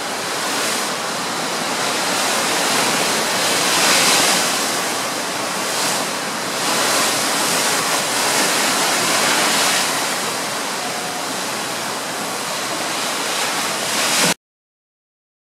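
Sea water rushing and churning along the hull of a cruise ship under way, mixed with wind on the microphone, surging louder and softer every few seconds. The sound cuts off abruptly near the end.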